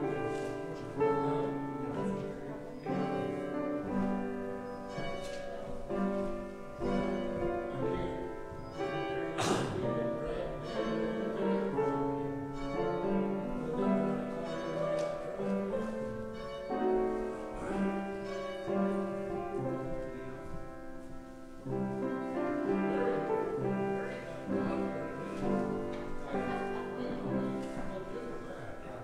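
Piano playing slow music of held chords. A single sharp knock sounds about a third of the way through.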